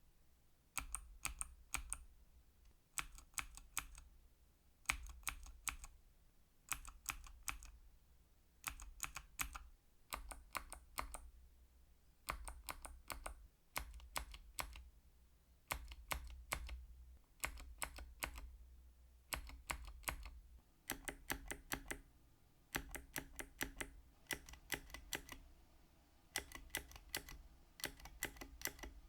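Clicky mechanical keyboard switches being pressed, Kailh Box Navy switches with their thick click bar heard alongside Cherry MX Blue and Cherry MX Green switches. They sound in short runs of several sharp, crisp clicks, one run about every one and a half to two seconds.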